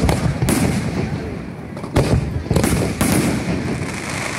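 Aerial fireworks shells bursting: about six sharp booms, one at the start, one about half a second in and a tight cluster from about two to three and a half seconds in, each trailing off in a rumbling echo.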